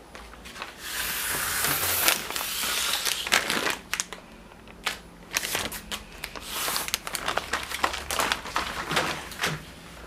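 Clear plastic transfer sheet crinkling and rustling as it is handled against the sticky glue side of a ski climbing skin. A long loud rustle starts about a second in, followed by many short crackles.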